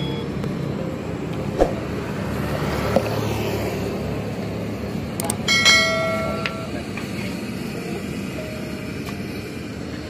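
Steady low rumble of passing road traffic, mixed with oil frying in a wok. There are a couple of sharp clicks and a brief ringing tone about five and a half seconds in.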